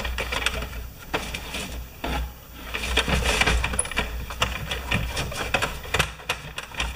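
A rag rubbing and scrubbing the plastic elevator of a Fisher-Price toy garage, with a coat sleeve brushing against the microphone. The rubbing comes with many small clicks and a low rumble.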